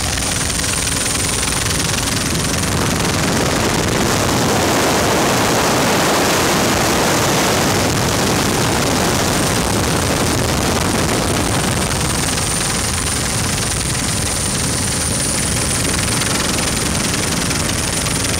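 Helicopter in low flight heard from inside the cabin with the side door open: a loud, steady rush of rotor, engine and wind noise, swelling slightly about four to eight seconds in, with a thin high whine over it.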